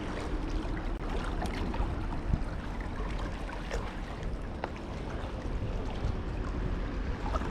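Steady water sounds at the shore, with a few faint light clicks scattered through.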